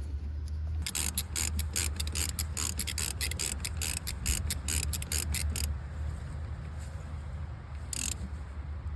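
Ratchet wrench clicking fast and evenly, about five clicks a second for some five seconds, then one more click near the end, with a steady low hum underneath.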